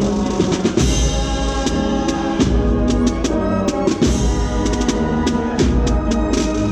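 Procession marching band playing, with drums beating under held melodic notes.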